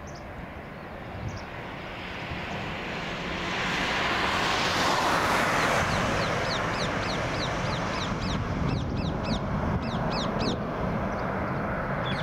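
Airbus A330-300 jet engines roaring on takeoff: the roar swells to a peak about five seconds in, then holds steady. From about seven seconds a bird calls over it, a run of short falling chirps several times a second.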